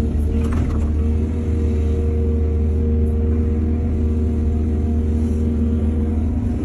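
Heavy diesel machinery running steadily: a low engine rumble with a constant hum, with a brief clatter about half a second in.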